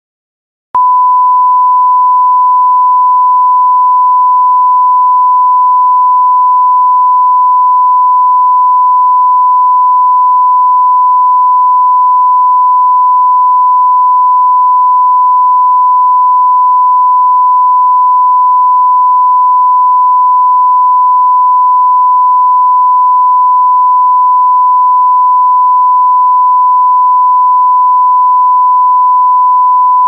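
Censor bleep: a single loud, steady pure tone, held unbroken after starting just under a second in.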